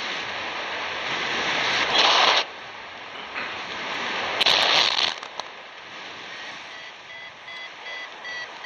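Airflow rushing over the microphone in paraglider flight, swelling louder twice, about two and four and a half seconds in. From about six seconds in, a flight variometer sounds a row of short, evenly spaced high beeps, its signal that the glider has begun to climb in rising air.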